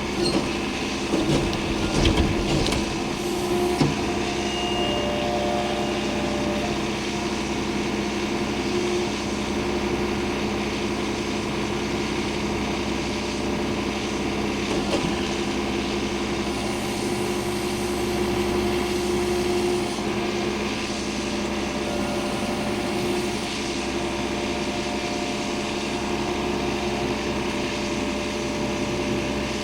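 The engine of a log-handling machine fitted with a grapple, running steadily, with a few knocks and clunks about two seconds in.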